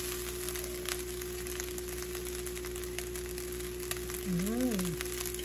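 Fried rice sizzling in a hot pan while it is stirred and turned with a wooden spatula, with faint scrapes and taps of the spatula against the pan. A short hummed "mm" rises and falls about four and a half seconds in.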